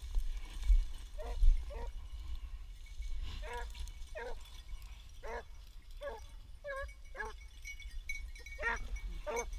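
Beagles baying in the distance in short, repeated calls, the voice hounds give while running a rabbit's scent trail. There are a couple of low thumps about a second in.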